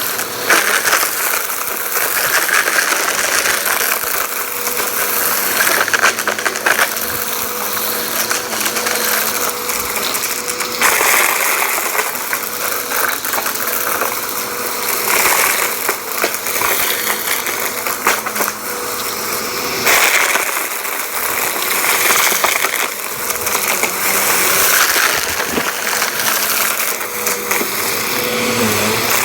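A vacuum cleaner running steadily, with crunchy debris crackling and rattling as it is sucked up. The rush of airflow swells and eases every few seconds.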